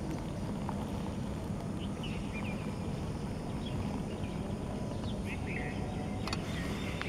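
Outdoor ambience: a steady low rumble with a faint hum, with a few short bird chirps around the middle and a single click near the end.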